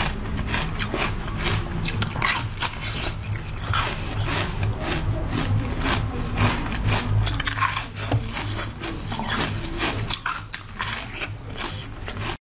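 Close-up crunching and chewing as a blue, bead-covered food is bitten: a dense run of sharp crackling crunches, with a low hum underneath.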